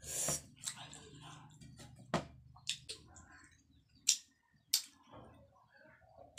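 Close-up eating sounds: fingers wiping food off a stainless steel plate, then wet smacks as she licks and sucks her fingers. There are several sharp separate smacks, the loudest about four and five seconds in.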